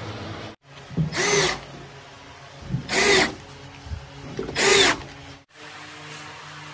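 Cordless drill driving screws through a gypsum board panel: three short bursts, each spinning up quickly, roughly a second and a half apart.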